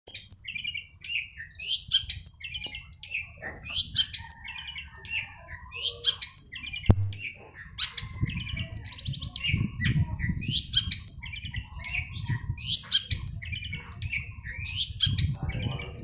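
Long-tailed shrike (cendet) singing: short, sharp, high phrases with quick chattering notes, repeated about once a second. A low rumble sits underneath through the second half, with a single click just before it starts.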